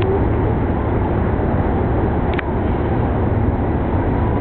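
Steady low rumble of motor noise, with a single short click a little past halfway.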